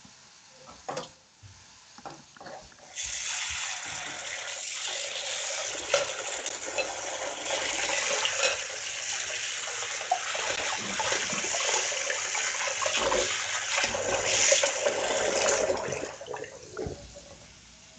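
Kitchen tap running into a sink, turned on about three seconds in and off near the end, with a few knocks of dishes before it.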